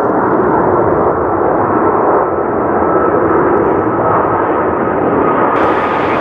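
Twin-engine jet airliner climbing out overhead just after takeoff: loud, steady jet engine roar with a thin high whine running through it.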